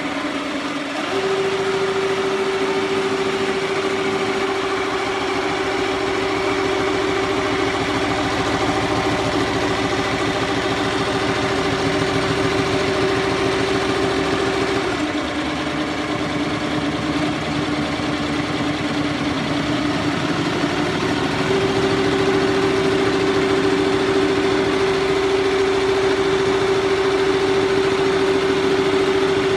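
Single-head He Feng embroidery machine running and stitching, a steady motor whine over a fast needle clatter. Past the middle the pitch drops for several seconds as the machine slows, then picks back up to its earlier speed.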